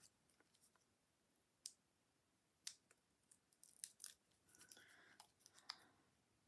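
Near silence with a few faint clicks and rustles from small paper pieces being handled: backing paper peeled off foam adhesive dots and paper hooves pressed onto a card, most of it in a short cluster a little past the middle.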